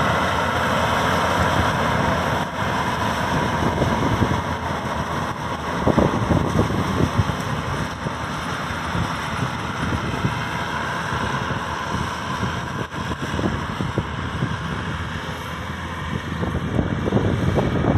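Maxxi Bimo 102 combine harvester running steadily, with irregular low rumbling thumps through the second half.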